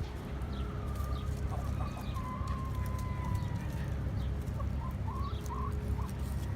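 Chickens clucking and calling: short wavering calls, with one longer drawn-out call about two seconds in, over a steady low rumble.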